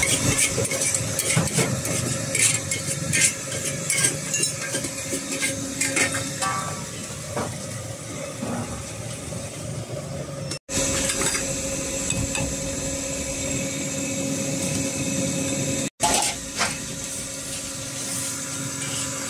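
A metal spatula scrapes and clanks against a wok during stir-frying, busiest in the first half. Underneath runs the steady sound of the high gas wok burner.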